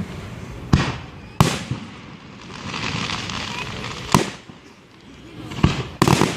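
Fireworks going off: five sharp booms, two in the first second and a half and three in the last half of the stretch, with a spell of crackling between them.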